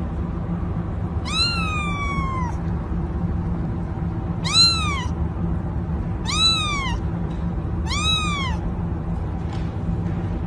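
A ginger kitten meowing four times, high and arching in pitch, the first call the longest with a falling tail, over a steady low background hum.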